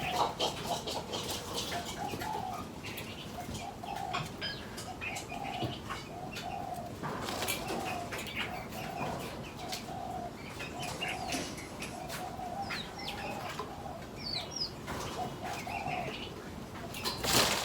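Aviary birds calling: a steady series of low repeated notes, about two a second, mixed with higher chirps, scattered clicks and wing flutters. A brief loud rustle comes near the end.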